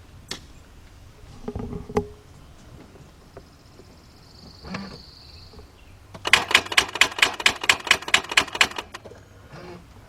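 Rapid, even clicking from the 2004 Mercedes-Benz C320's starting circuit, about seven or eight clicks a second for about two and a half seconds, as the key is turned: the starter solenoid chattering while the engine does not crank over.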